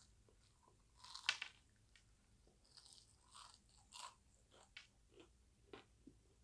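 A person chewing crispy fried chicken (KFC parmesan truffle chicken): faint crunches of the breaded skin, the loudest about a second in, then smaller ones every half second or so.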